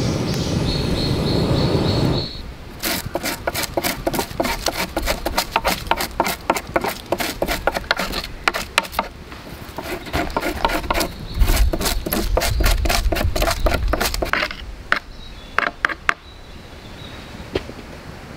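A knife shaving curls off a branch to make a feather stick: runs of rapid, sharp scraping strokes with short pauses. These follow about two seconds of steady crackling and hiss from a small wood campfire.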